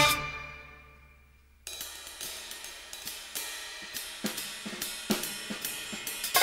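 Background music: a tune fades out over the first second and a half, and after a brief near-silent gap a quiet passage of cymbal and hi-hat strokes begins.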